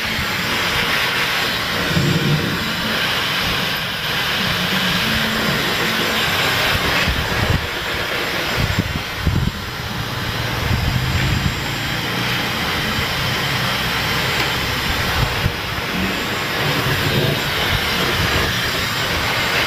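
Hand-held hair dryer running steadily, blowing dust off the circuit board of an open CRT television.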